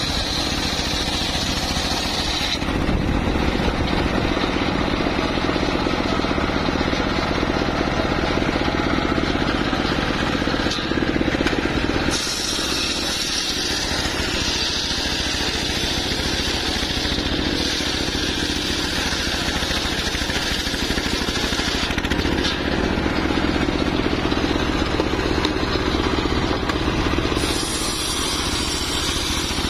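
Homemade engine-driven circular-saw sawmill running continuously while its blade rips lengthwise through an old mahogany log. The tone of the engine and blade changes a few times as the saw goes into and out of the cut.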